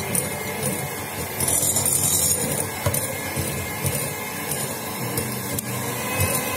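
Electric hand mixer running steadily, beating the hot, thick choux pastry dough to bring its temperature down before the eggs are added.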